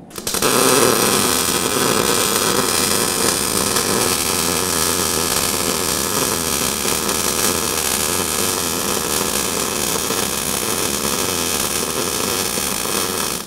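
MIG welding arc from an Eastwood MIG 175 welder, crackling steadily as one continuous bead is run. It starts just after the beginning and cuts off abruptly at the end when the trigger is released.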